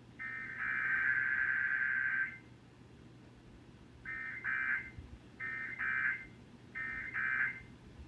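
Emergency Alert System SAME digital data bursts: a harsh, buzzy two-tone warble. One long header burst ends about two seconds in. After a short pause come three short bursts about a second apart, the end-of-message code that closes an alert.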